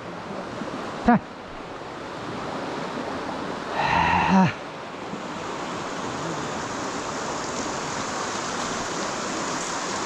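Rushing mountain stream water, a steady hiss that slowly grows louder. A brief, loud pitched call cuts through about four seconds in.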